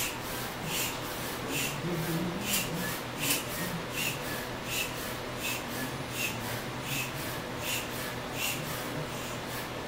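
Foot-operated bellows air pump being stepped on steadily, puffing air through its hose to inflate a ball: a short whoosh a little more than once a second.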